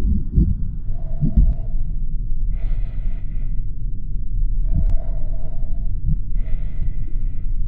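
Heavy, laboured breathing, four breaths in and out alternating about every second and a half, over a steady low rumble, with a few dull low thumps in the first second and a half.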